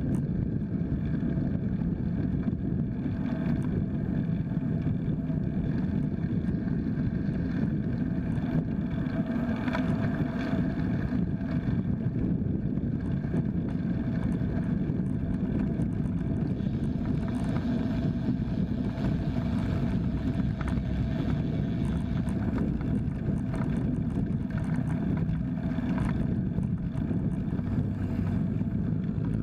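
Steady low wind rumble on the microphone of a bike-mounted camera while riding along a road, mixed with tyre and road noise. Near the end a passing motor vehicle's engine hum joins in.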